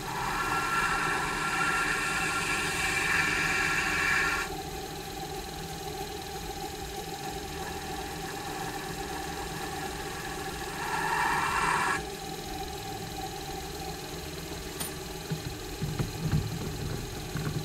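Small bench cue lathe running steadily while a hand-held blade scrapes the spinning break tip to shape it. The scraping lasts about four and a half seconds at the start and comes again briefly around eleven seconds in. A few light knocks come near the end.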